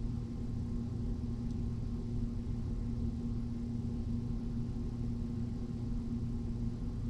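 Steady hum of a home's central air-conditioning system running, with air moving through the attic ductwork: a constant low motor tone over a low rumble.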